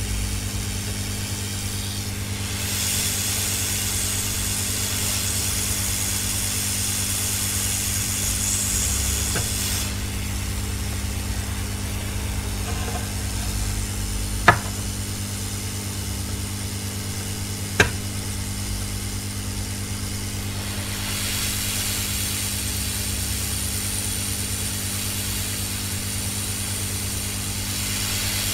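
Hot-air rework station blowing heated air onto a circuit board to desolder chips: a steady hiss of air over a low hum, the hiss louder from a few seconds in until about a third of the way through and again near the end. Two sharp clicks come about halfway through, a few seconds apart.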